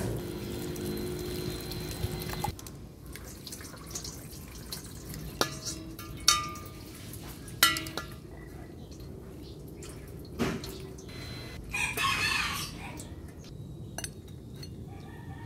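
Water poured from a jug onto grated cabbage in a glass bowl for about two and a half seconds. Then come sharp clinks and knocks of the glass bowl against a steel mesh strainer and steel bowl as the soaked cabbage is tipped into the strainer, and a brief wet rush later on.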